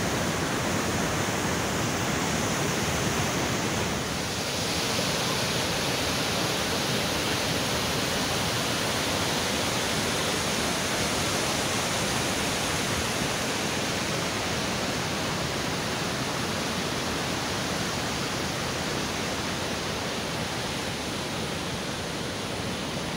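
Whitewater of a fast mountain river rushing over boulders through rapids: a steady, unbroken rush of water.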